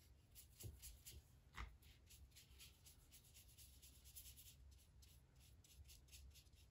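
Faint strokes of a watercolour paintbrush brushing across paper, over and over, with a couple of light knocks in the first two seconds.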